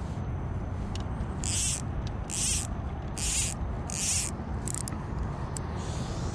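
Fly line swishing as a fly rod is false-cast: four short hissing strokes just under a second apart, then a weaker fifth, over a steady low rumble.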